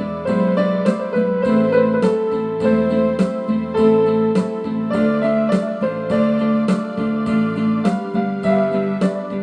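Electric keyboard playing an instrumental passage of a Gypsy song: held chords and a melody over a steady, even beat.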